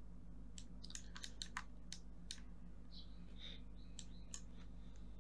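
Faint computer mouse and keyboard clicks, about a dozen scattered irregularly, over a steady low electrical hum.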